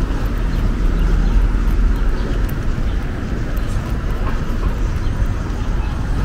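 Steady city street noise, mostly a low traffic rumble, with a few faint higher chirps.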